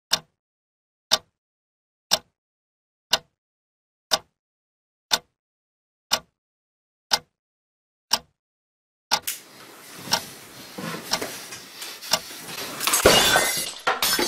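A quartz clock ticking, one sharp tick a second with dead silence between. About nine seconds in, a dense crashing and shattering din takes over and builds to its loudest near the end.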